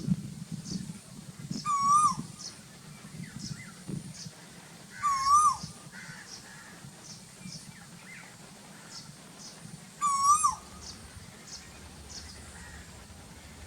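Asian koel calling three times, each a loud, short, wavering whistled note that dips at the end, a few seconds apart. Another small bird gives faint, short, high chirps over and over in the background.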